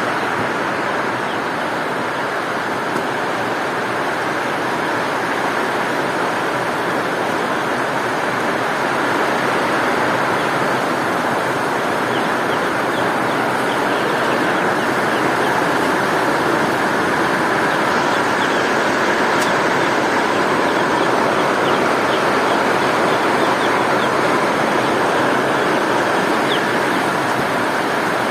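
Steady heavy rain, a dense even hiss, growing slightly louder partway through, with faint ticks of individual drops in the second half.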